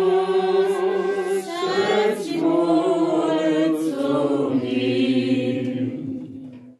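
Small congregation of men and women singing a hymn together without accompaniment, on long held notes that fade out and stop near the end.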